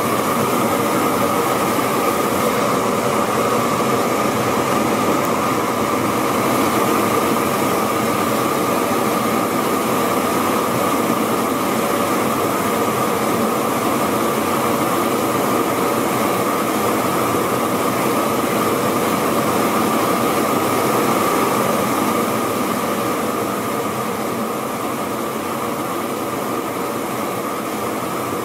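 Two stainless steel jet burners burning at full flame, a loud steady rush of gas and flame, a little quieter in the last few seconds.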